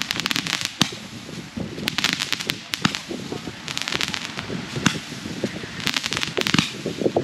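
Fireworks crackling: rapid runs of sharp pops come about every two seconds, with single louder pops in between.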